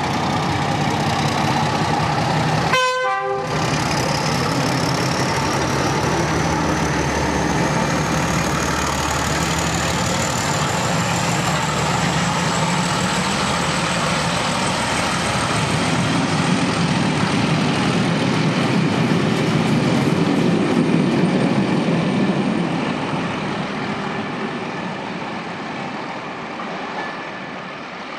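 Class 31 diesel locomotive's English Electric V12 engine working hard as it hauls a test train away, after a blast on its two-tone horn near the start. A high whine rises slowly for several seconds, and the sound fades near the end as the train draws away.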